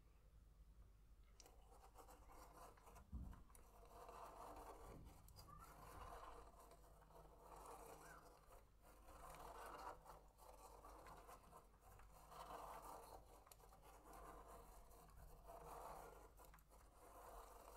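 Faint felt-tip pen scratching on paper as a clear plastic spirograph gear is wheeled around inside a toothed ring, with fine clicks from the gear teeth; the scratching swells and fades every second or two. A soft thump about three seconds in.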